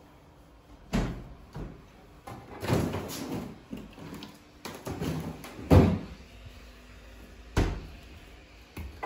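Kitchen doors being opened and shut, four separate knocks and thumps with the loudest a little past the middle.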